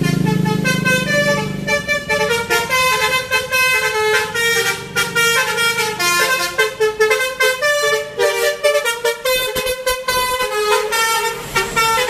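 A passing tour bus's 'telolet basuri' multi-tone musical horn playing a fast melody of short, high notes, several a second, without a break. A low drone sounds under the first two seconds.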